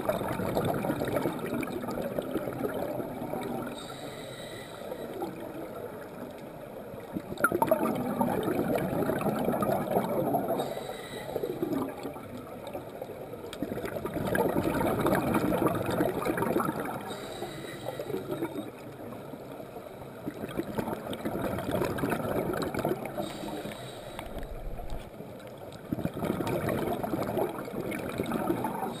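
Scuba diver breathing through a regulator underwater: a gurgling rush of exhaled bubbles about every six to seven seconds, five times, with a faint hiss of inhalation between them.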